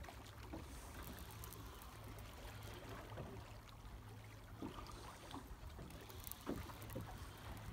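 Quiet steady low rumble and water noise aboard a small fishing boat on the sea, with a few faint clicks and knocks about two-thirds of the way through.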